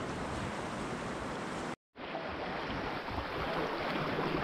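Steady rush of fast-flowing river water around an open canoe, the river running high. The sound cuts out for a split second just under two seconds in, then resumes.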